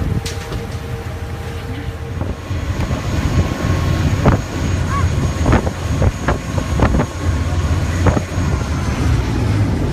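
Low rumble of a boat's engine with wind buffeting the microphone, and several short sharp knocks in the second half.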